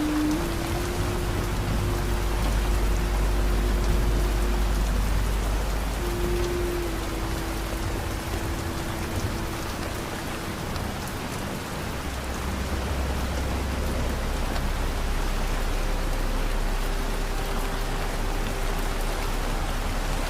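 Steady rain hiss with soft, slow music under it: a few long held notes that change pitch every few seconds over a low drone.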